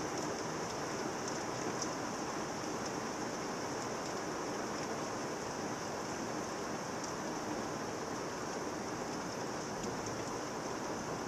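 Rain falling steadily on trees and leaves during a thunderstorm: an even, unbroken hiss.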